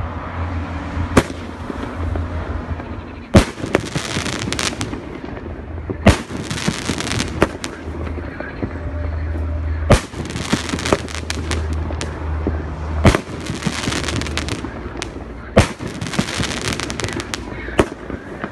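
A 12-shot 2.5-inch aerial shell firework cake firing: a sharp bang every two to three seconds, about seven in all. Several bangs are followed by a second or so of hissing.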